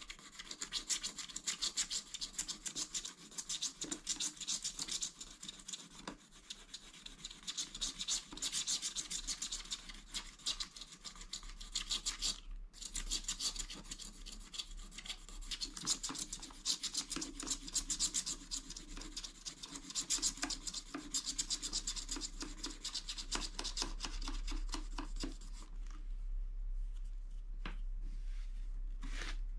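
Fingers rubbing briskly back and forth over a scratch-art card, wiping loose flakes of scraped-off black coating from the surface. The strokes are rapid and continuous, with one short break midway, and die away near the end.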